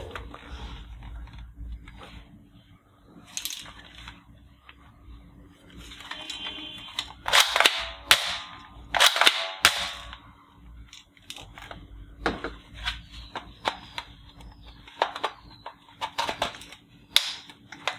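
Hard plastic clicks, snaps and knocks from a toy AK-47 rifle being picked up and handled, with the loudest sharp snaps bunched about seven to ten seconds in.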